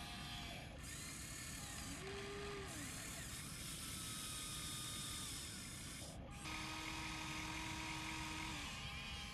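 Huina 1593 RC excavator's small electric motors and gearboxes whining as it works its boom and bucket, several whining tones rising, holding and falling as the motors start and stop. The sound changes abruptly about two-thirds of a second in and again after six seconds.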